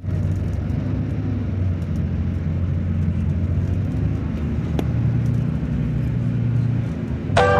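Engine of an airport apron shuttle bus running as it drives, heard from inside the cabin as a steady low rumble with a hum underneath.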